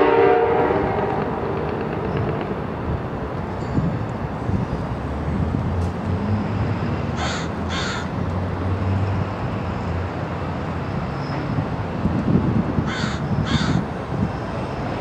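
A crow cawing, two caws about halfway through and two more near the end, over the low rumble of a passenger train rolling away. The tail of a locomotive air horn dies away in the first moment.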